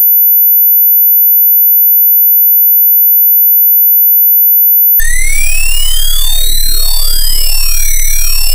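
A loud, steady, very high-pitched electronic sine tone, then about five seconds in a dense synthetic texture of many tones sweeping up and down in crossing arcs over a steady tone and a low hum.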